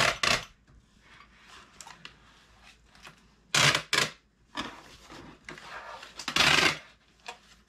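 Packing tape being pulled off a handheld tape gun dispenser and pressed onto a cardboard shipping box: three loud strips of tape noise, each about half a second long, right at the start, about three and a half seconds in and about six and a half seconds in, with quieter rustling of cardboard between.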